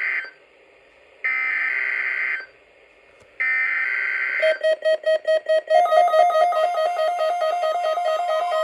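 EAS/SAME alert header: short bursts of warbling digital data tones, each about a second long with a second's gap, the code that switches on weather-alert receivers. About four and a half seconds in, a pulsing, musical-sounding attention tone starts and then runs on steadily.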